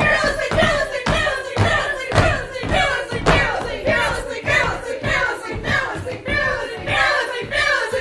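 Several people stamping their feet in a steady rhythm, about two stamps a second, over voices holding a sung note.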